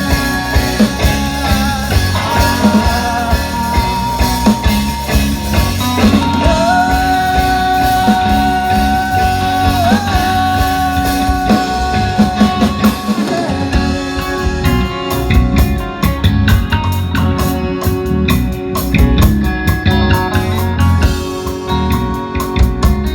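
Rock band music between sung lines, with guitar and drums. A long high note is held for several seconds in the middle, and the cymbals grow busier in the second half.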